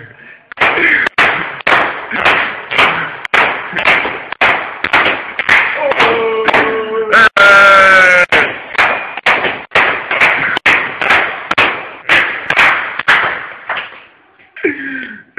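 Hard drives being smashed: sharp blows about two a second, with voices shouting over them and a long high yell about seven seconds in.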